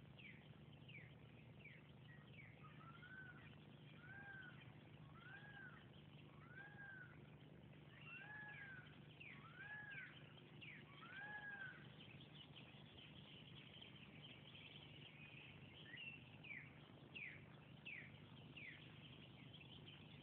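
Faint animal calls: short, quickly falling chirps come and go, and through the middle seven rising-and-falling calls repeat about every second and a quarter.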